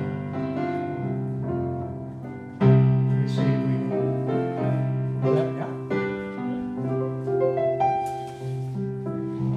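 Electric keyboard with a piano sound, playing slow, held chords. A louder chord is struck about two and a half seconds in.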